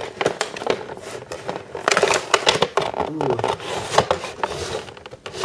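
Cardboard box and plastic packaging being handled, with a run of crinkles, scrapes and clicks, busiest about two seconds in and again near four seconds, as a vinyl figure is worked out of its box.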